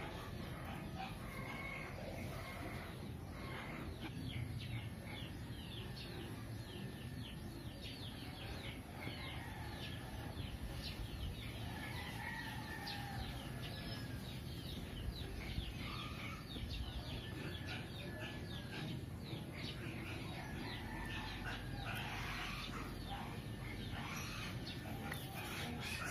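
Chickens and other birds calling in the background, with many quick high chirps throughout, over a low steady hum.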